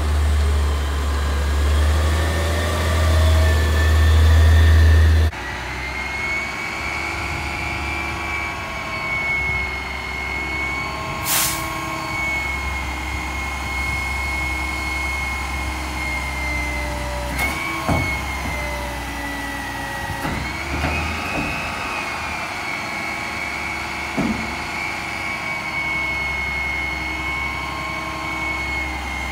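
Peterbilt 320 Curotto-Can garbage truck's engine running loud and low under load. About five seconds in it cuts to a Mack LEU McNeilus Curotto-Can truck running with a steady high hydraulic whine while packing. There is a short hiss of air around the middle and a few clanks later on.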